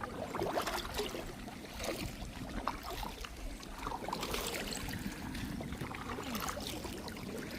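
Kayak paddling: water splashing and dripping off the paddle blades in small irregular splashes, over a low rumble.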